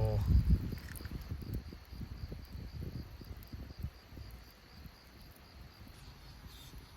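A cricket chirping steadily in a rapid, even high pulse, with irregular low knocks and rumbles underneath that are loudest in the first second.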